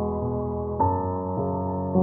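Slow, gentle piano music with sustained chords; a new chord is struck a little under a second in.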